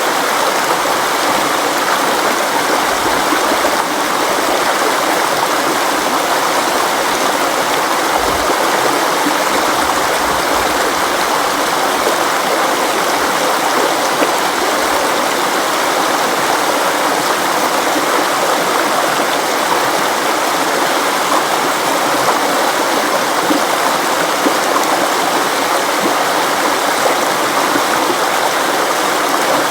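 River water flowing steadily over rocks, a constant rushing with no breaks.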